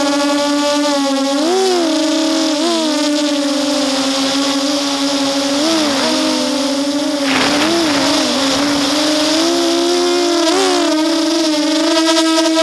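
Electric motors and propellers of an RCX 250 quadcopter whining steadily, heard close up from the onboard camera, the pitch briefly dipping and rising several times with throttle changes. A short rush of wind noise comes about seven seconds in.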